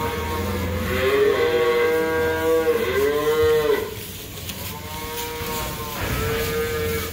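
Beef cattle mooing: several drawn-out moos, the two loudest back to back in the first half, then a quieter one near the end.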